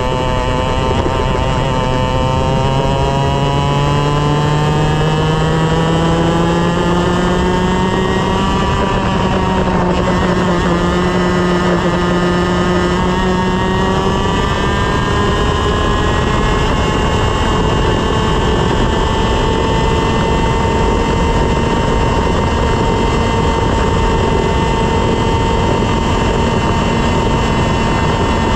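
125cc two-stroke TaG kart engine at full throttle, heard from on board. The engine note climbs as the kart accelerates, dips briefly about nine seconds in, then rises again and holds a high, nearly steady pitch near the top of the rev range.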